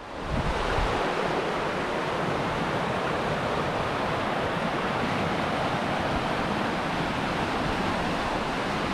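River Teith rushing over shallow rapids: a steady, unbroken roar of fast water.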